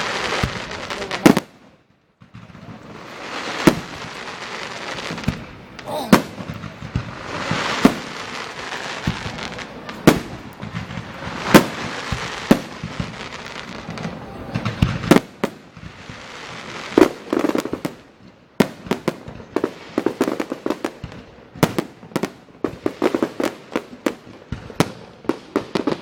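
Aerial fireworks bursting: sharp bangs over a crackling hiss. From about two-thirds of the way in, the bangs come thick and fast.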